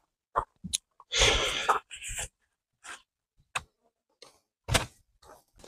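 Scattered light clicks and knocks of handling, with a short rush of noise about a second in and a shorter one about two seconds in.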